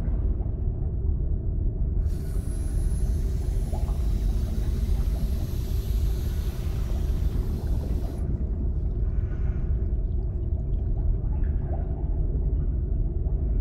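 Underwater ambience: a steady low rumble of moving water, with a hiss that comes in about two seconds in and stops about eight seconds in.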